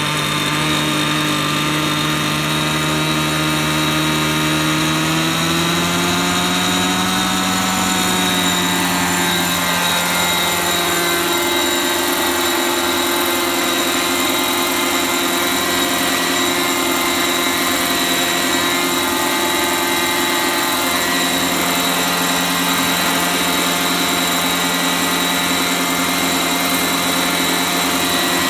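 Century Condor 830 gasoline R/C helicopter: its small two-stroke engine and rotors spool up, the pitch rising over the first several seconds as it lifts off, then running steadily in a hover with a constant high whine, the engine running perfectly.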